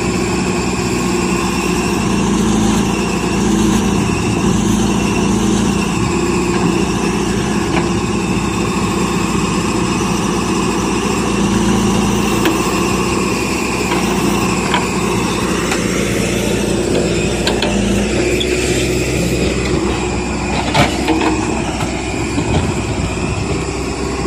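JCB 3DX backhoe loader's diesel engine running steadily under hydraulic load as the backhoe digs and swings soil, with a few sharp knocks from the bucket about three quarters of the way through.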